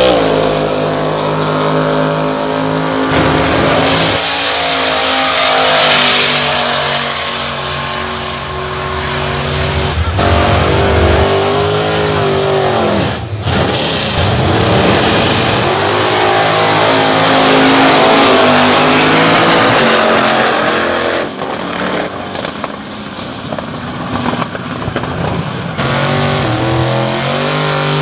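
Loud drag-racing car engines revving hard, rising and falling, with tyres spinning in burnouts, one of the cars supercharged. The sound changes abruptly several times between short clips of different cars.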